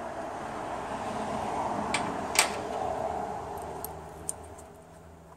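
Small metallic clicks and clinks as shift solenoids are slid out of the valve body of a VW 01P automatic transmission by hand. Two sharp clicks come about two seconds in, the second the loudest, with a few lighter ticks near the end, over a rushing noise that swells and then fades.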